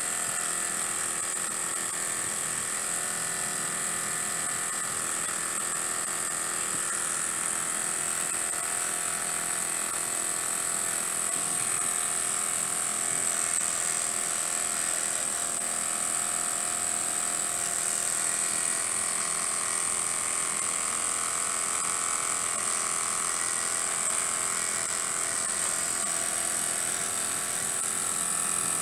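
Small model horizontal mill steam engine running steadily at speed: a fast, even whir of its flywheel and crank over a constant high steam hiss.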